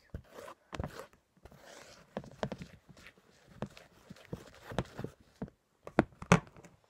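A clear plastic mixing bowl knocking and rocking against a plastic tabletop as glue-and-borax glitter slime is stirred hard with a spatula, giving irregular knocks about once a second, a couple of the loudest near the end.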